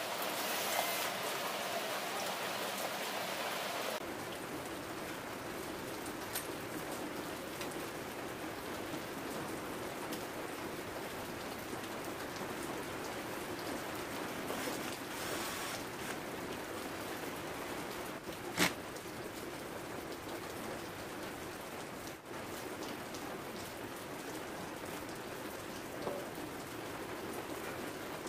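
Steady hiss of rain falling, with one sharp click about two-thirds of the way through.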